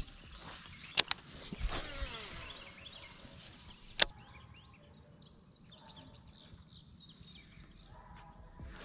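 Baitcasting reel casting a lure: two sharp clicks about a second in, then a falling whine as the spool spins out and slows. Another single sharp click comes about four seconds in, over a steady high hiss of outdoor background noise.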